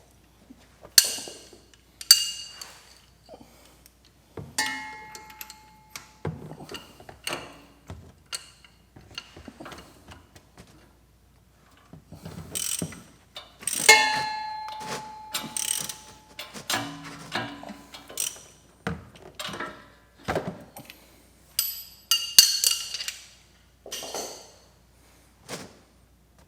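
Metal hand tools and parts clanking and knocking against each other and the mower, in irregular bursts, with a few clanks ringing briefly like struck metal.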